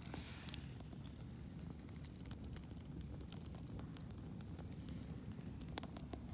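Wood fire burning in the firebox of a mud updraft kiln, crackling with scattered sharp pops over a low steady rumble, the fire drawing well under the kiln's updraft.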